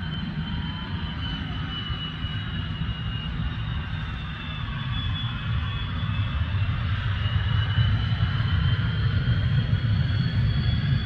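Jet hydroplane Spirit of Australia 2's Westinghouse J34 turbojet running at speed on a run across the water: a deep rumble under a high whine that dips and then rises in pitch, growing louder about halfway through as the boat passes.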